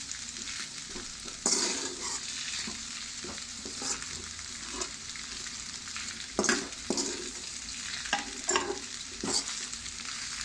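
Pasta frying in a pan of vegetable masala with a steady sizzle while it is gently tossed, a utensil scraping and knocking against the pan every second or so at irregular moments.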